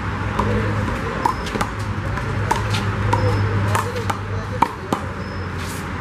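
Handball rally: a small rubber handball slapped by hand and striking a concrete wall, giving a series of sharp smacks at uneven intervals, the loudest about four and a half seconds in.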